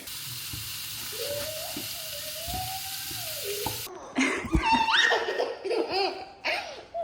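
Patties sizzling in a frying pan with a young child's voice wavering over the sizzle; about four seconds in the sizzle stops abruptly and a toddler laughs and vocalises loudly.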